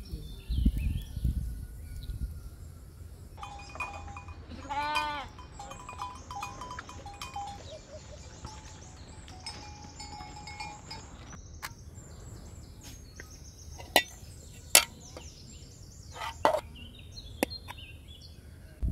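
Goats bleating, with one loud bleat about five seconds in among other shorter calls, and a few sharp clicks near the end.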